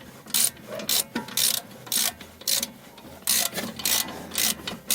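Ratchet wrench clicking in repeated strokes, about two a second, as a brake caliper bolt is being unscrewed.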